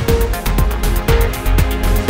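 Electronic background music with a steady beat, about two bass beats a second under quick high ticks.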